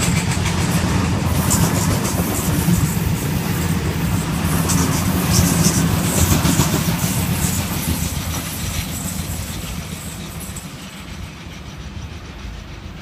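Sydney Trains Waratah (A set) double-deck electric train running past close by: a steady rumble of its wheels on the rails with some clatter, dying away over the last few seconds as it moves off.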